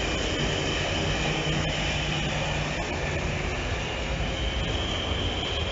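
DE 520 diesel-electric locomotive passing at the head of a freight train. Its diesel engine runs with a steady low drone, with a steady high whine above it.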